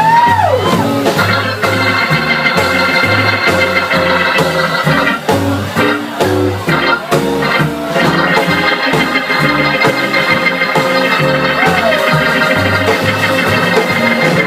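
A band playing an instrumental passage: long held chords over a stepping bass line and steady drum hits.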